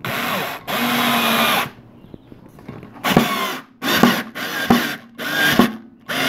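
Cordless drill driving a long screw through a plastic bracket into the cabinet's wooden base: two longer runs in the first two seconds, then five short bursts as the screw is snugged tight.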